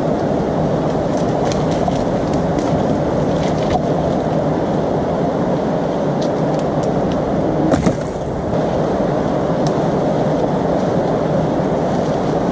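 Steady rush of a fast-flowing mountain river, with dry wood cracking, snapping and knocking as dead branches are broken off and handled; the loudest crack comes about eight seconds in.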